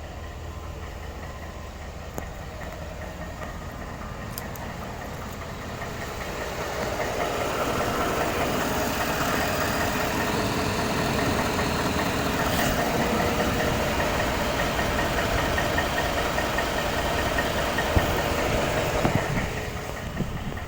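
2013 Ford F-150's 5.0 L V8 engine running with a rapid, steady knocking clank from inside the engine. The clank is a mechanical fault the owner is showing off. The sound grows louder about six seconds in and then holds steady.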